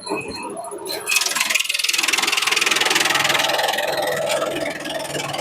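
Bamboo shredder machine running, its engine under a loud, fast, even rattle of shredding that starts about a second in.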